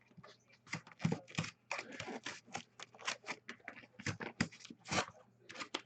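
Trading-card packaging being torn open and handled, giving a quick irregular run of short tearing and crinkling sounds.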